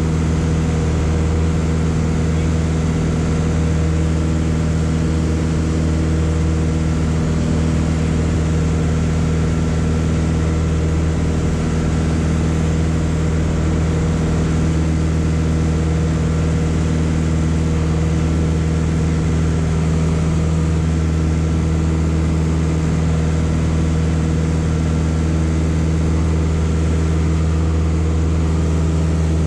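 Piper PA-38 Tomahawk's four-cylinder Lycoming engine and propeller heard from inside the cabin, running at steady power in a constant, even drone as the plane climbs out after a touch-and-go.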